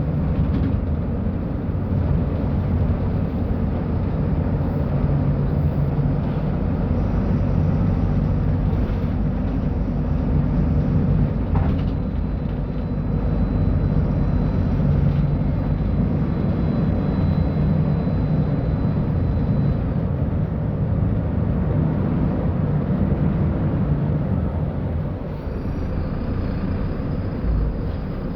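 Mercedes-Benz O-500U city bus diesel engine running, a steady low drone whose pitch rises and falls slightly.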